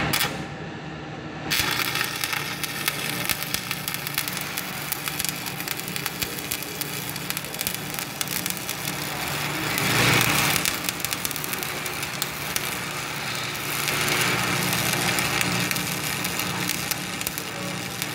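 Stick-welding arc from an E7014 rod at about 135 amps, laying a butt weld on steel. It starts abruptly about a second and a half in, then runs as a steady hiss of fine crackles, swelling louder near the middle and again a little later.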